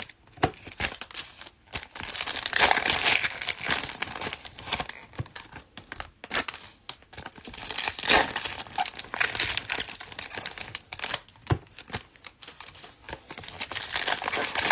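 Plastic trading-card pack wrappers crinkling and tearing in irregular bursts as packs are opened and handled.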